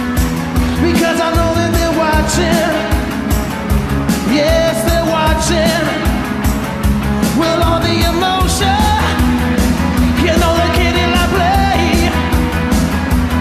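Rock-styled song performed live with a band: a lead vocal holding long wavering notes over a steady drum beat and bass.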